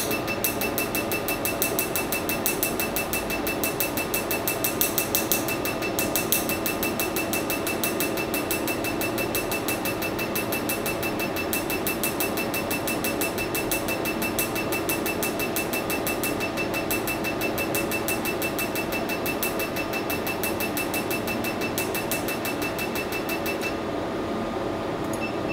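Picosecond Nd:YAG tattoo-removal laser firing at six pulses a second. Each pulse is a sharp snapping click, heard over the steady hum of the machine. The clicking stops shortly before the end.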